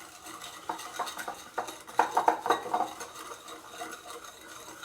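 Egg yolk, sugar and starch being stirred by hand in a bowl, the utensil clicking and scraping against the bowl in quick, irregular strokes.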